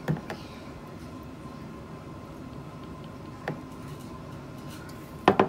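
Light kitchen handling knocks over a steady low hiss: a couple of soft clicks at the start and one a few seconds in, then a quick cluster of sharp knocks near the end, as a plastic spoon and oil bottle are handled over a plastic mixing bowl.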